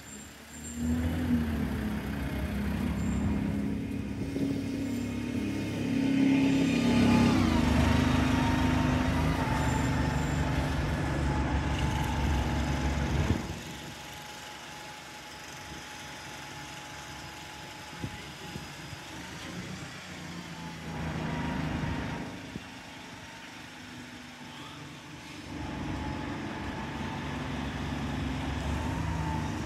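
Diesel engine of a Stagecoach Alexander Dennis Enviro200 single-deck bus pulling away and accelerating, its pitch rising about seven seconds in. The sound drops suddenly about halfway through as the bus moves off, then grows louder again near the end.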